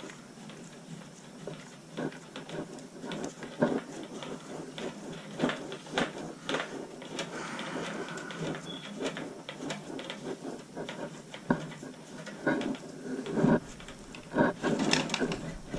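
Scattered, irregular clicks, knocks and light rattles from hands working with tools and metal parts, over a low steady hum.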